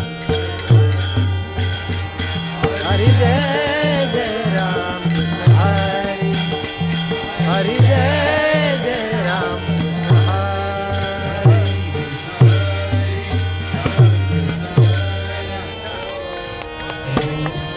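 Indian song: a singer's voice with long, curving pitch glides over accompaniment, with low drum strokes about once a second.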